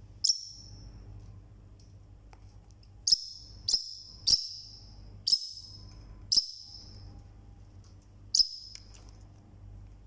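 Forpus parrotlet calling loudly: seven short, sharp, high-pitched calls, each cutting in suddenly and fading fast. One comes right at the start, five follow at uneven spacing between about three and six and a half seconds in, and one more comes near the end.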